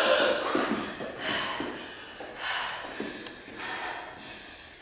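Performers breathing hard between smallsword exchanges: a voiced exhale falling in pitch right at the start, then loud breaths about once a second that grow quieter.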